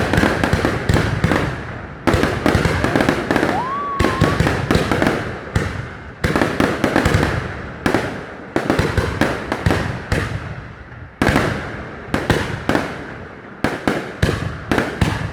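Fireworks display: aerial shells bursting in quick succession, dozens of sharp bangs, often several a second, each followed by a fading rumble. A short rising whistle comes about four seconds in.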